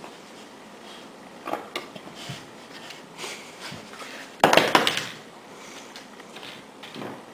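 Two dogs scuffling in play on a rug and tile floor: scattered knocks and rustling, with a louder half-second burst of clattering about four and a half seconds in.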